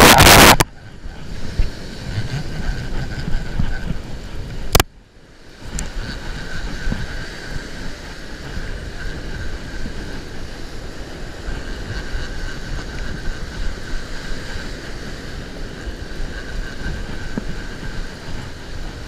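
Ocean surf breaking on a sand beach, with wind buffeting the microphone. There is a loud rush in the first half-second and a sharp click about five seconds in.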